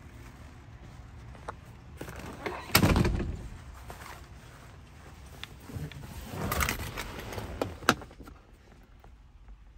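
Handling noise of someone moving about inside a car's cabin: a heavy thump about three seconds in, rustling and soft knocks a little later, and a sharp click near the end.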